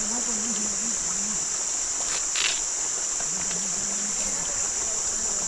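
Steady, high-pitched chorus of insects trilling without a break, with faint voices low underneath and a short noisy rustle about two and a half seconds in.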